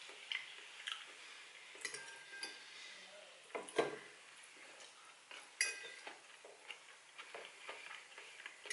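Metal fork clinking and scraping against a ceramic bowl while scooping food: a scattered series of clinks, a few with a brief ring, the loudest about four seconds in.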